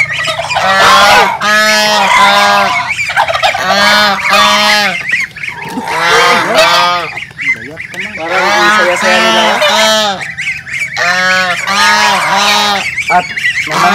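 Domestic geese honking over and over, loud calls in quick runs of two to four with short pauses between the runs.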